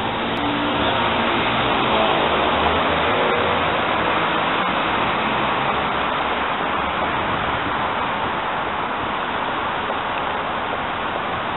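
Steady traffic noise of a busy city street.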